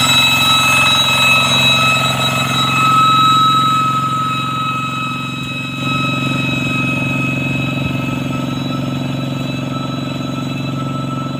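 Single-cylinder diesel engine of a two-wheel hand tractor running steadily under load as it drives on cage wheels through a wet rice field, with a steady high whistling tone over the engine. The sound dips for a moment about five seconds in and comes back.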